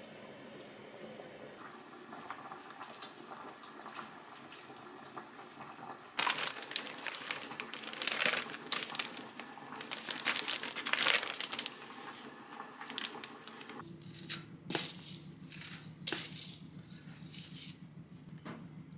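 Clear plastic bag of frozen perilla leaves crinkling as it is handled for several seconds, starting about six seconds in. Later come shorter scrapes and taps of a metal spoon in a stainless steel bowl.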